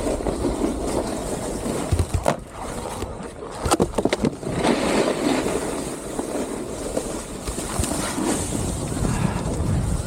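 Snowboard sliding and scraping over packed snow, with wind rushing over the microphone. A few sharp knocks come about two seconds in and again around three and a half seconds in.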